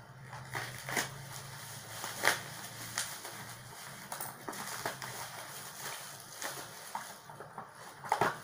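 Plastic wrapping around a beer can crinkling and rustling as it is cut with scissors and pulled off, with irregular sharp crackles and clicks, the loudest a little over two seconds in and just before the end.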